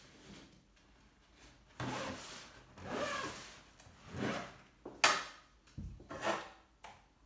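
Fabric cool bag being handled and its zip pulled shut, heard as about five noisy rubbing strokes, with one sharp click about five seconds in.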